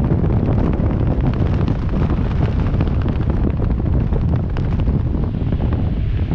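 Wind buffeting the microphone during a parachute descent under an open canopy: a steady low rumble with fast crackling.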